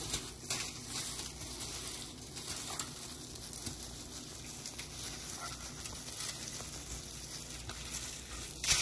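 Plastic-gloved hands rustling and aluminium foil crinkling as a whole pompano is stuffed with chopped herbs and tomato, over a steady hiss, with a louder crinkle near the end.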